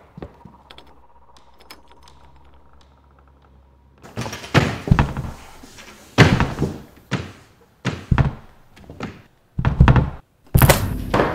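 A run of heavy thuds on a wooden door, about a dozen blows in quick, uneven succession, starting about four seconds in.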